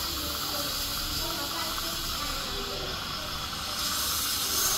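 Dental saliva ejector hissing steadily as it sucks air and saliva from the mouth during a tooth extraction.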